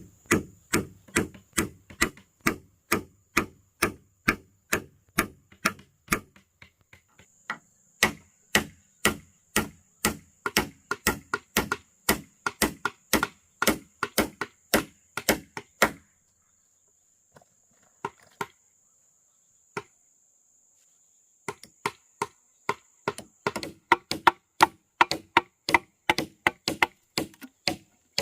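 A tool striking wood in steady, repeated blows, about two a second. The blows stop after about 16 s, leaving a few scattered knocks, and pick up again about 21 s in.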